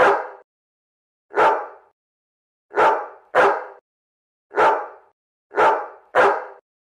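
Domestic cat barking like a dog: seven short woof-like calls about a second apart, with two of them coming in quick pairs about halfway through and near the end.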